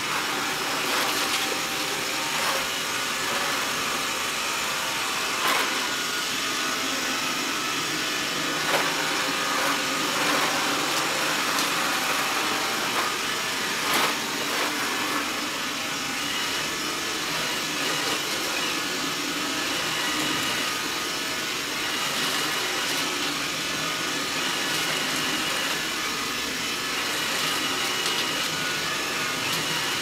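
Robot vacuum cleaner running steadily as it sweeps and sucks up rolled oats and powder from a wood-laminate floor, with a few short sharp clicks along the way.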